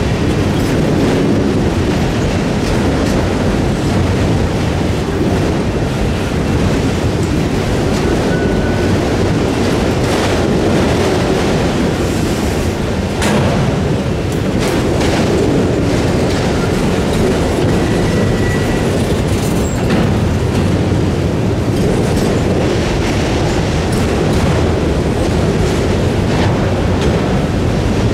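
Freight train cars rolling past at close range: a steady loud rumble with clattering wheels, scattered clanks, and brief faint wheel squeals.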